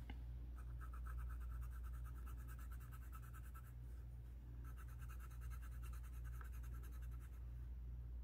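Coloured pencil scratching on paper with rapid back-and-forth colouring strokes, an old pencil pressed hard to lay down colour. The strokes come in two runs of about three seconds each, with a short pause about four seconds in, over a faint steady low hum.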